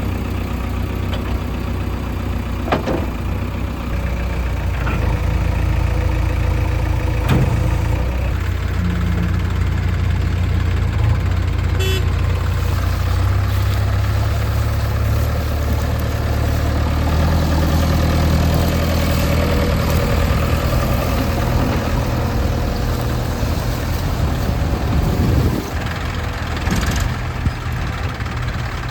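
Diesel engine of a JCB 3DX backhoe loader running and working, its pitch rising and falling with the load, with a few sharp metallic knocks in the first several seconds.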